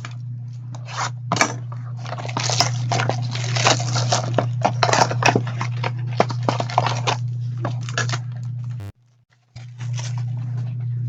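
Plastic packaging on a box of trading cards being torn open and crinkled: a dense run of crackles and rustles over a steady low hum, cutting out briefly near the end.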